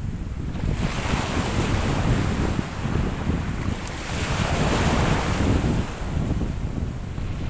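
Small sea waves breaking and washing in over the shallows, surging twice, the louder wash about four to five seconds in, with wind rumbling on the microphone.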